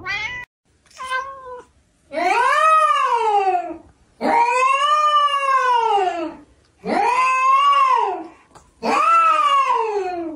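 Domestic cat meowing: two short meows, then four long drawn-out meows, each rising and then falling in pitch, with brief pauses between them.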